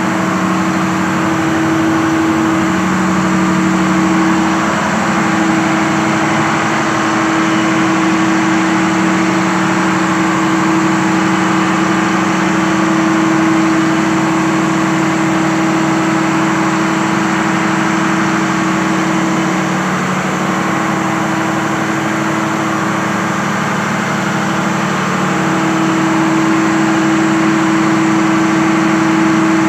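Freshly overhauled Cummins diesel generator-set engine running steadily at constant speed, a loud, even drone with a steady hum.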